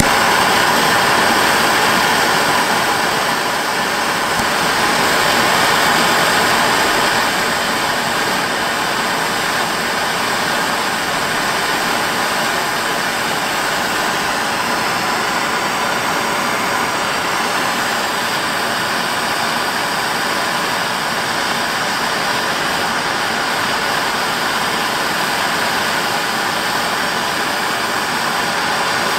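Gas blowtorch burning with a steady hiss, its blue flame heating a fluxed bronze piece bound with copper wire for soft soldering.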